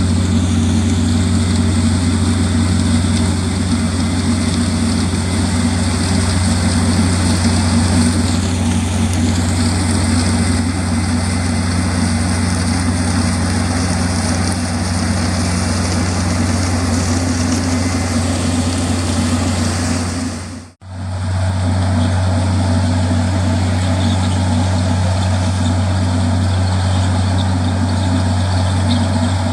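Heavy farm machinery running steadily under load, its engines giving a constant deep drone. The sound breaks off for an instant about two-thirds of the way through and resumes the same.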